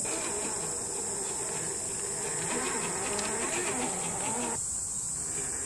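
Axial SCX10 III RC crawler's electric motor and geartrain whining as it crawls over rocks, the pitch rising and falling with the throttle, then cutting off abruptly near the end. Underneath, a steady high insect buzz.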